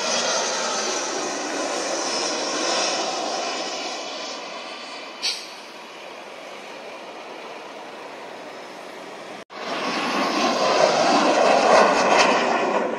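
A twin-engine jet airliner's engines on landing approach, their noise fading as it sinks toward the runway, with a brief click about five seconds in. Then a sudden cut to a MiG-21 fighter's jet engine, which grows louder as it passes low and peaks near the end.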